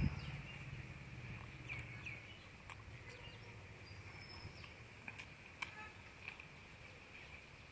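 Quiet outdoor ambience: a steady high insect drone with scattered short bird chirps, and a few faint sharp clicks.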